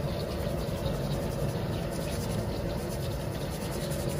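Steady hiss and hum of vegetable oil heating up in the pot for deep frying, getting hot and ready for the fish.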